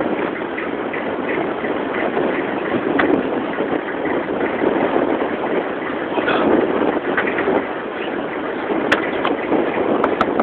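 An engine running steadily, with a few short clicks near the end.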